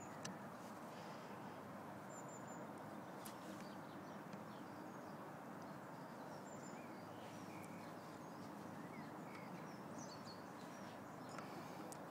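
Steady outdoor background noise with faint, short bird chirps now and then.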